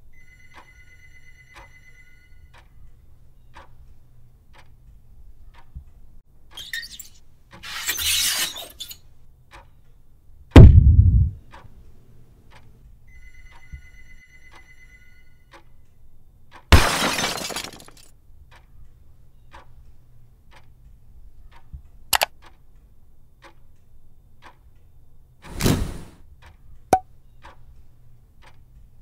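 Edited sound effects over a subscribe animation: a clock ticking about twice a second throughout, with a short beeping tone near the start and again about 13 s in. Swooshes come about 8 and 17 s in, the loudest sound is a deep boom falling in pitch about 10 s in, and sharp clicks come near 22 and 26 s.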